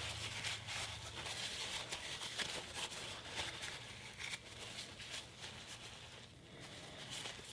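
Faint rubbing and scratching with many small irregular clicks: an Apple Watch and its band being wiped and scrubbed clean by hand.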